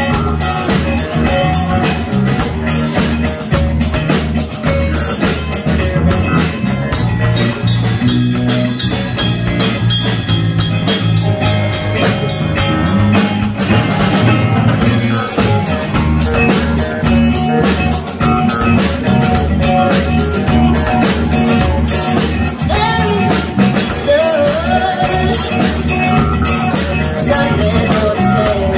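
Live rock band playing: drum kit keeping a steady beat under electric guitar, bass guitar and keyboard, with a lead vocal.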